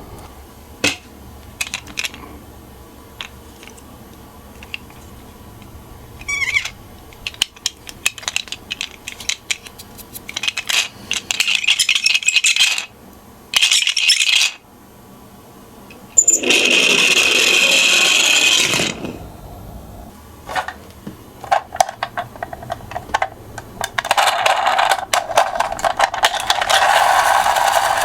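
Toy miniature cars rattling and scraping as they roll down a slope, with scattered small clicks and knocks from the toys being handled. There are several rushing runs of a second or two each, and a longer one in the last quarter.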